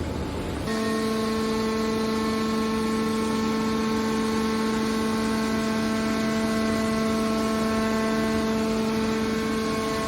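Hydraulic scrap-metal baler's pump unit running with a steady, even whine, starting about a second in.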